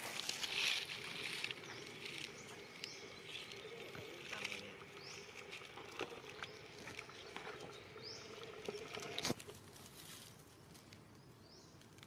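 Outdoor forest ambience: a rustling scuffle in the first second and a half, then a few scattered sharp clicks and several short, high, rising chirps over a faint steady hum.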